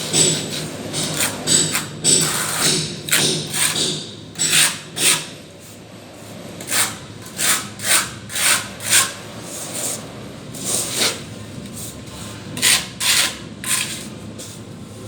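A plastering tool scraping and smoothing wet cement plaster on a wall in repeated short strokes, irregular at about one to two a second, with a short lull about six seconds in.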